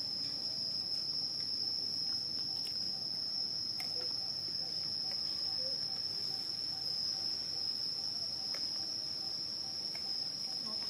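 Outdoor insect chorus: one steady, unbroken high-pitched drone, with a few faint ticks now and then.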